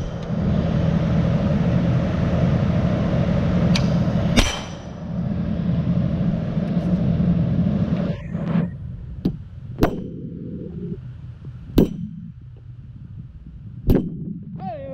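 Hammer blows on steel, about half a dozen sharp metallic strikes spaced unevenly, driving a rounded-off bolt out of a combine bean-head sickle knife section. A fan's steady whir runs under the first half and drops away about eight seconds in.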